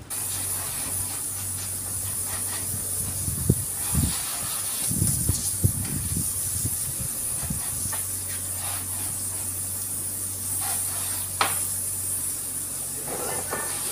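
Garden hose spraying water onto a motorcycle and wet concrete, a steady hiss that starts abruptly. A few low knocks come midway.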